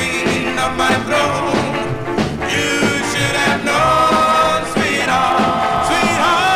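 Doo-wop record on a 45 rpm single: a vocal group holding long harmony chords over a rock and roll band backing.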